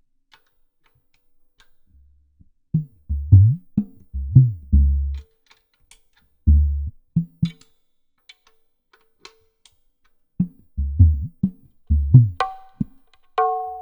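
Dangdut percussion track: deep kendang-style bass strokes that bend down in pitch, played in short bursts with pauses between them. Near the end, higher pitched tuned drum hits join in.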